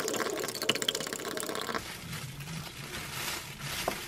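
Small spiral wire whisk beating egg in a glass mug: a rapid clicking rattle of the whisk against the glass, which stops about two seconds in. Then a softer rustling of shredded cabbage being lifted out of a plastic bag.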